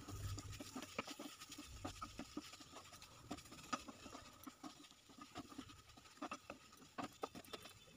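Wooden spatula stirring and scraping a thick, dry radish curry around a nonstick frying pan: faint, irregular scrapes and taps.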